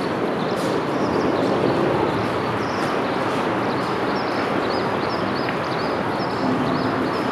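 Forest river flowing steadily with a constant rush of water, while small birds chirp over it in quick runs of short high notes.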